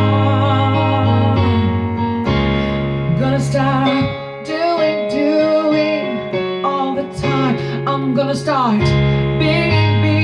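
Instrumental worship music on keyboard and guitar, with sustained chords under a gliding melody line.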